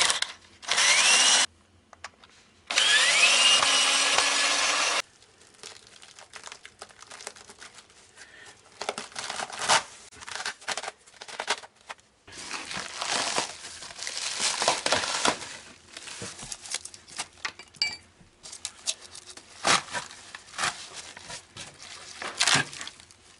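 Cordless drill-driver running in three short bursts in the first few seconds, whining up to speed, as it backs the screws out of wooden concrete formwork. After that come irregular knocks, clatter and scraping as the formwork boards are pried off the cured concrete step.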